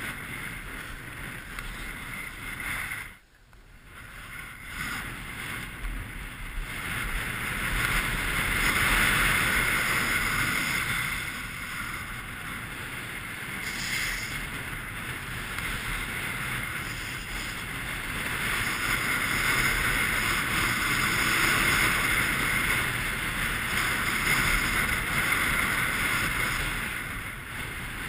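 Skis hissing and scraping over packed snow on a fast downhill run, mixed with wind rushing over the microphone. It gets louder in two long stretches and cuts out almost completely for a moment about three seconds in.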